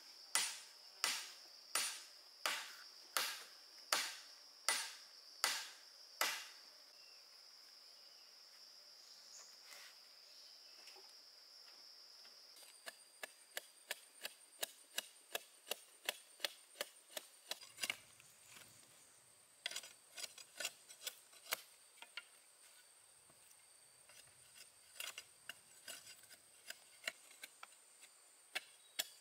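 Chopping strikes on wood, about two a second, stopping about six seconds in. After a pause, lighter and quicker taps start around the middle and run on irregularly. Insects keep up a steady high-pitched drone throughout.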